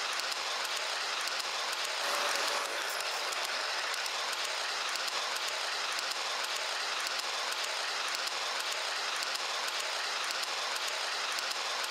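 Train running on rails: a steady hissing rush with fine rapid clicking, a little louder about two seconds in.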